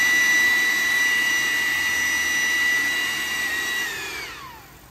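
Ryobi 40-volt cordless leaf blower running at turbo speed with a steady high whine over the rush of air. About four seconds in, the whine drops in pitch and fades as the fan winds down.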